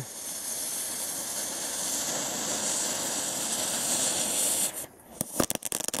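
Panda Magic Spin Ball, a small Class 1 firework spinner, burning in the grass with a steady hissing rush. About five seconds in it ends in a quick run of sharp crackling pops.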